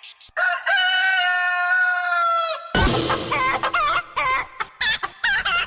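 A rooster crowing one long held call that drops in pitch at its end, then from about halfway a loud beat comes in under repeated chicken clucking.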